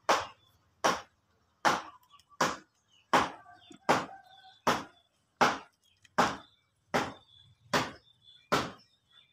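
A steady series of sharp, heavy strikes, about twelve in all, one every three-quarters of a second.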